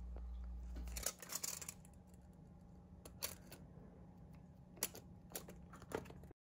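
Irregular light clicks and taps from small hard objects being handled in a small room: a cluster about a second in, then a few single clicks. A low hum stops just before the first clicks.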